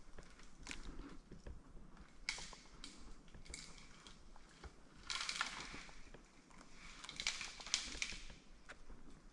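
Irregular crunching and rustling noises, a second or two apart, loudest about halfway through and again near the end.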